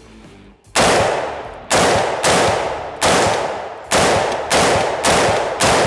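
About eight semi-automatic shots from a 7.5-inch-barrel AR-15 pistol firing 55-grain 5.56 full metal jacket through a SilencerCo ASR-mounted muzzle device. The shots come unevenly, half a second to a second apart, each a sharp report with a long fading tail. The blast is extraordinarily harsh: the very short barrel leaves propellant still burning outside the muzzle.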